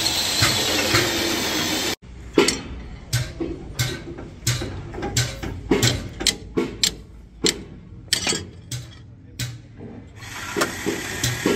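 Irregular sharp metallic clinks and knocks, about one or two a second, from a steel T-handle socket wrench and iron bar working the nuts on a truck wheel hub. Before them, a steady mechanical noise cuts off abruptly about two seconds in, and a similar noise returns near the end.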